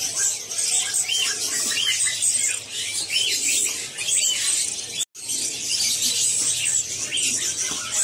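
Caged songbirds chirping, many short high arched notes repeating over a dense high twittering, with a brief dropout of all sound about five seconds in.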